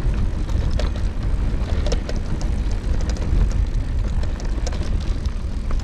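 Wind buffeting the camera microphone over the rumble of mountain bike tyres rolling on a gravel track, with scattered small clicks and rattles from the bike.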